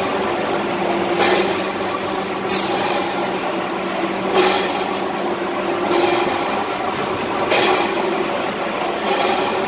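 Tuna-canning machine running with a steady hum and a short hiss of air about every one and a half seconds, six times, like a pneumatic cylinder exhausting on each cycle.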